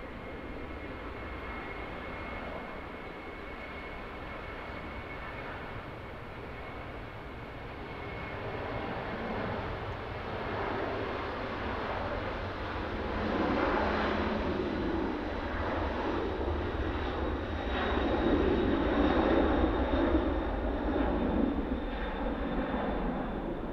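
Boeing 767-300ER airliner taking off, its twin jet engines at takeoff thrust with a thin steady whine over the noise. The sound grows louder about halfway through and is loudest near the end as the jet lifts off and climbs.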